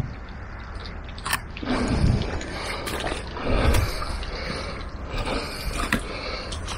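Shallow stream trickling over stones and brick paving, with a few sharp mechanical clicks and two louder low rumbles, the loudest about two seconds and three and a half seconds in.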